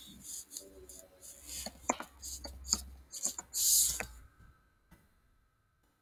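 Computer keyboard keys clicking irregularly as text is typed, with a short louder rustle about three and a half seconds in. The clicks stop about four and a half seconds in.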